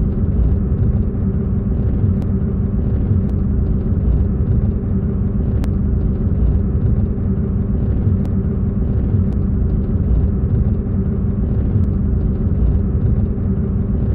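A motor vehicle running: a steady low rumble with a constant engine hum that neither rises nor falls.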